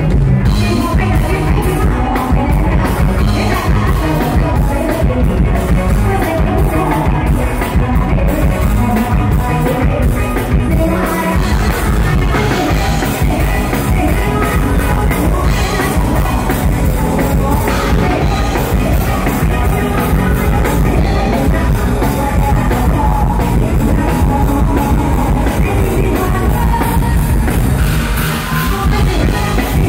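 Loud live luk thung band music played through a stage sound system, with a woman singing over it.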